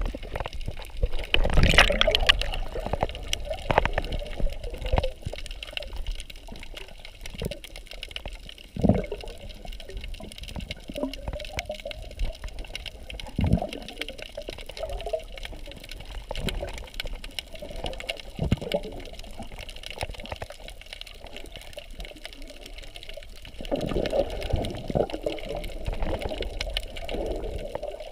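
Muffled underwater sound from a camera carried by a swimmer: water swishing and swelling irregularly, with scattered dull thumps, louder for a few seconds near the end.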